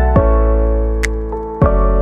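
Instrumental background music: held keyboard notes over a deep, sustained bass, with a new note struck every second or so.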